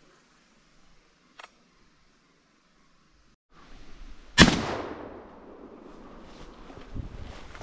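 A single shotgun shot about four seconds in, its echo trailing off over the next second. A short sharp click comes about a second and a half in.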